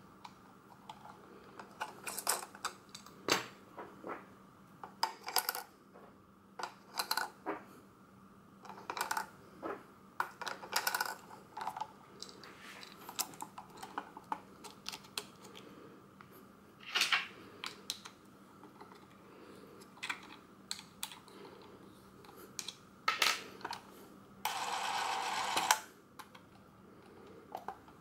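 Bauer C 4 Super Super 8 movie camera being handled: irregular clicks and knocks from its parts and controls as it is turned over and worked by hand. Near the end comes a steady whirr lasting about a second and a half.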